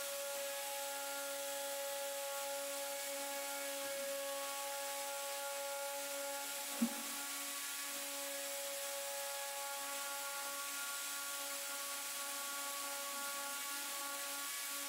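Small rotary grinder with a pointed carbide bit running steadily, grinding a V-groove across a crack in a plastic headlight tab. There is a short knock about seven seconds in.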